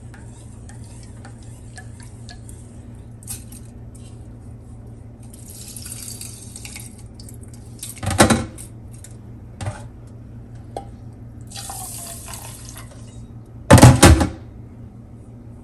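Water sloshing and trickling as millet (samai) is swirled by hand in a small steel saucepan and scooped and poured between it and a steel bowl to settle out the stones. Two loud metallic knocks of steel pans about eight seconds in and near the end, the second louder.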